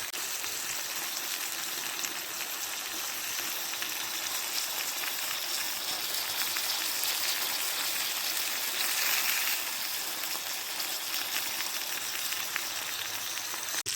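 Steak, prawns and potatoes frying in a cast-iron skillet over a campfire: a steady sizzle with faint crackles.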